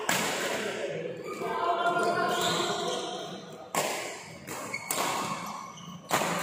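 Badminton rackets striking a shuttlecock in a doubles rally: a sharp smack at the start, then a quick run of smacks about a second apart in the second half.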